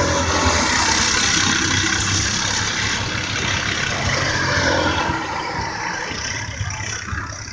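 Racing kart engines buzzing at speed as a kart goes along the near straight, with more karts running on the rest of the circuit; the sound is loudest over the first few seconds and then eases off.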